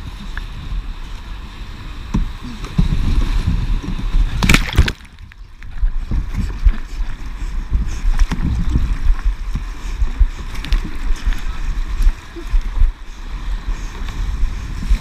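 Canoe running river rapids: rushing, splashing water and paddle strokes, with a heavy rumble on the microphone. About four and a half seconds in there is one loud sharp hit, after which the sound goes briefly muffled.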